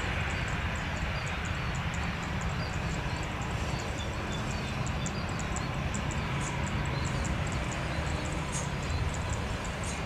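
Steady low rumble of a twin-engine jet airliner's engines at idle as it sits on and turns on the runway. Faint bird chirps and rapid high insect-like ticking sound over it.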